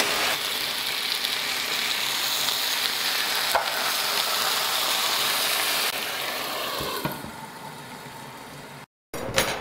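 Chicken breasts sizzling in hot oil in a frying pan as they are seared, with a single light click about three and a half seconds in. The sizzle falls to a quieter hiss from about six seconds in, with the pan lidded.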